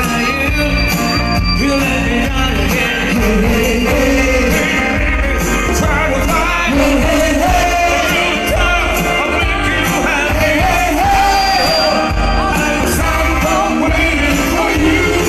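Live band music with a singer, a steady bass and drums under a sung melody, in a rock-and-roll style.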